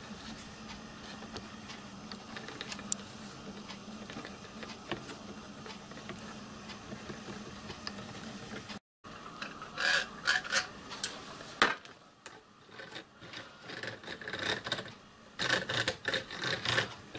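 Small brass and steel gears of a hand-built miniature lathe's carriage apron being turned through their mesh by a tap wrench on the gear shaft, with faint clicking and rubbing. About nine seconds in, louder clusters of rattling metal clicks follow, with a quieter stretch between them.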